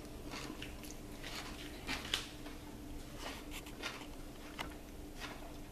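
Faint, scattered light clicks and taps, about a dozen at uneven intervals, over a thin steady low hum in a quiet room.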